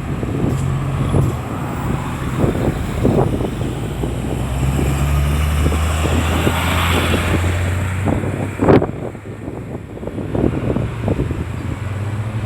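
Road traffic passing close by: car engines and tyres, with a heavier vehicle's deeper engine note running for several seconds in the middle. A single sharp knock comes about nine seconds in.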